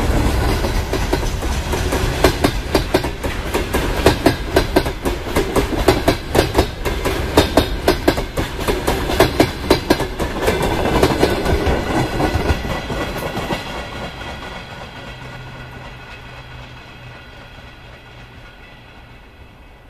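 Freight train wagons rolling past, their wheels clattering over the rail joints in quick groups of knocks. From about thirteen seconds in the clatter fades away as the end of the train, a boxcar, recedes.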